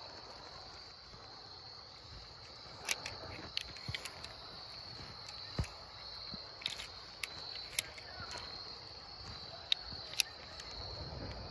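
A steady high-pitched chorus of insects, with scattered short clicks and knocks, about nine or ten of them, spread through the whole stretch.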